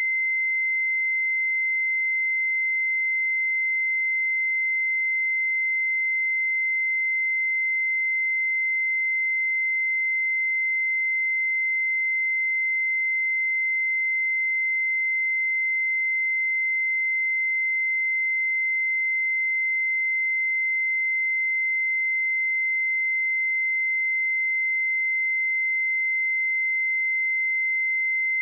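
A pure 2072 Hz sine-wave test tone, held steady at one pitch and level.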